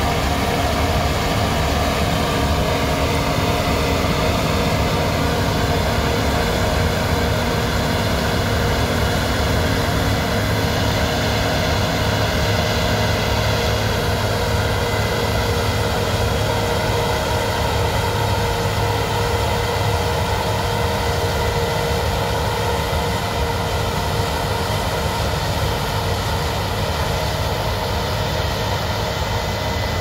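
Case IH Axial-Flow combine harvesting wheat: the engine and threshing machinery give a steady, loud drone with a deep rumble under a cluster of steady hums.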